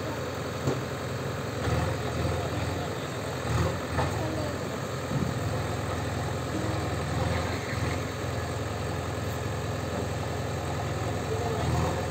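JCB 3DX backhoe loader's diesel engine running steadily, with a few brief swells in engine note as the machine works on the rubble.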